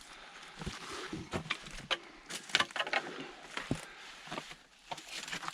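Hikers pushing through dense, stiff scrub on stony ground: brush rustling and scraping against clothing and packs, with irregular crackles, snaps and footfalls on rock.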